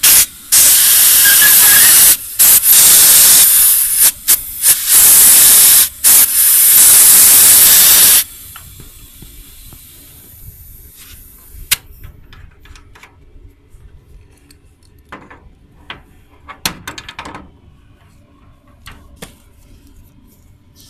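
Loud hiss of pressurized gas rushing out at an air conditioner outdoor unit's service valve where a manifold gauge hose is connected, cut off briefly several times and stopping about eight seconds in. After that, light clicks and knocks of the hoses and fittings being handled.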